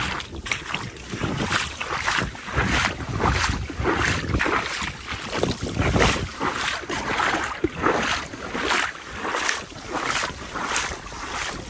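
Footsteps wading through shallow floodwater, a regular splash with each step, with wind buffeting the microphone.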